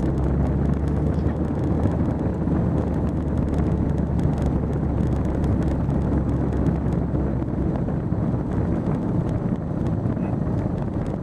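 Car engine and road noise heard from inside the cabin while driving: a steady low rumble with a faint engine hum.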